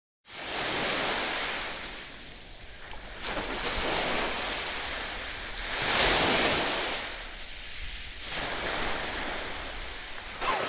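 Sea surf washing onto a beach, the noise rising and falling in slow swells and loudest about six seconds in, with wind on the microphone. Near the end come a few splashes of feet running through shallow water.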